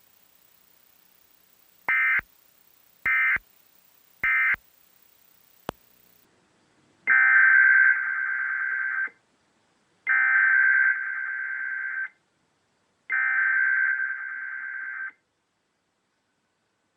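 Emergency Alert System SAME digital data bursts. First come three short bursts about a second apart, the end-of-message code closing the warning. After a click, three longer bursts of about two seconds each follow, the header of the next alert.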